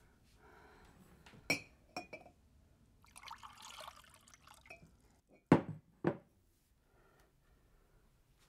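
Glass clinks as a glass carafe touches a glass tumbler, then water pours into the tumbler for about a second. Then come two loud knocks of glass set down on a wooden table.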